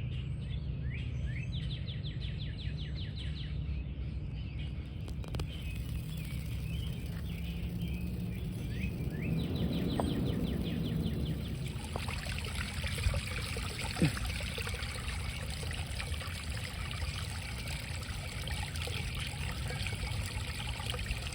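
Water trickling and splashing into a koi pond, with birds chirping now and then; the trickle grows louder and fuller about halfway through.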